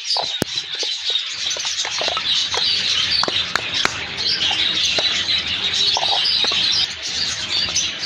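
A colony of budgerigars chattering and chirping continuously, with scattered sharp clicks and crackles of a sealed grit tub's packing being opened by hand.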